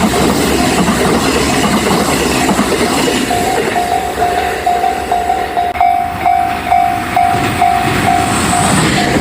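A train passing over a railway level crossing with wheels clattering on the rails, its noise dying away about three seconds in. The crossing's warning bell keeps ringing in a steady run of repeated electronic tones.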